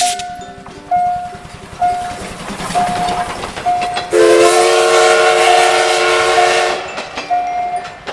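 Railway level crossing warning signal ringing in a steady repeating pattern, about one stroke a second, with the noise of a passing train. About four seconds in, a train horn sounds one held chord of several notes for nearly three seconds, the loudest sound here.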